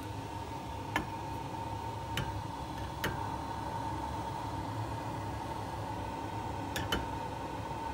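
Steady hiss and low rumble with a faint steady whine, broken by a few light clicks and knocks as a white block is dropped into an enamel mug and the mug is handled on the metal stove grate, two of them close together near the end.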